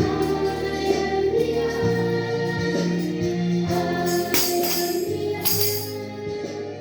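Music for a sung poem: held chords over a changing bass line, with voices singing, and two short high rattles like a tambourine shake just past the middle.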